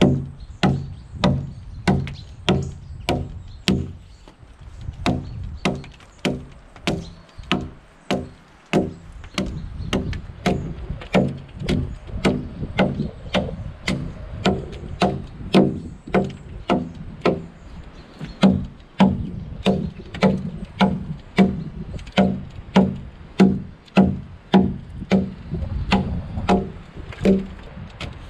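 Hand axe chopping into a log, hewing along its side: a steady run of sharp woody strikes about two a second, softer for a few seconds in the first third.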